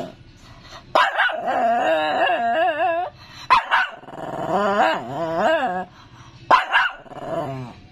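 Small long-haired dog barking and then whining in long, wavering, up-and-down tones, three times over. It is a demanding, begging vocalisation aimed at getting a share of its owner's food.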